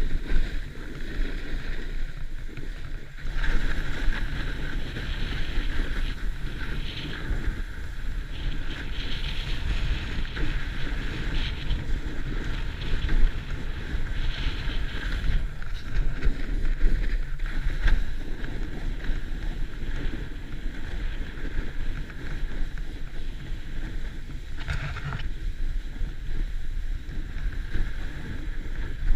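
Wind buffeting an action camera's microphone over a snowboard sliding and carving on snow, with a low rumble and a hiss that swells and fades through the turns.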